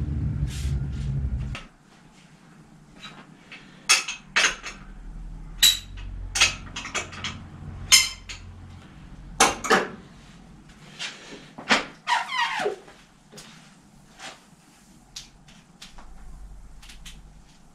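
A steady low hum that cuts off about a second and a half in, then scattered metallic clicks, taps and clanks of tools and bicycle parts being handled on a bike in a repair stand, with one short falling squeak near the middle.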